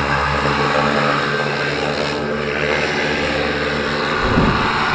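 Paramotor's Top 80 two-stroke engine running at high throttle during the takeoff run, with a steady propeller drone. Low buffeting thuds come in near the end.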